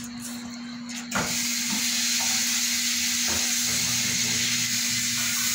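A loud, steady rushing hiss that starts suddenly about a second in and holds, over a low steady hum.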